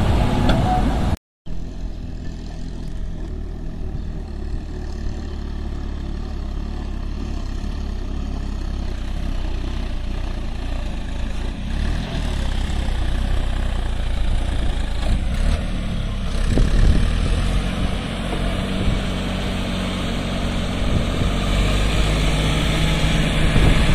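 John Deere 5305 tractor's three-cylinder diesel engine running steadily under load as it pulls a heavily overloaded trolley. The sound cuts out briefly about a second in, and grows gradually louder near the end as the tractor draws closer.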